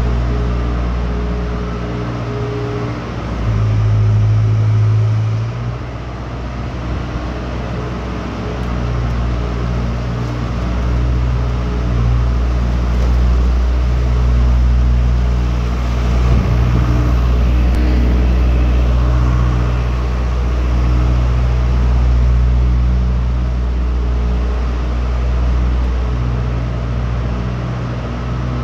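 Engine of a farm machine running steadily, its note changing briefly a few seconds in.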